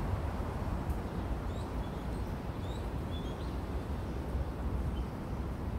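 Outdoor background: a steady low rumble with a few faint, short bird chirps in the middle.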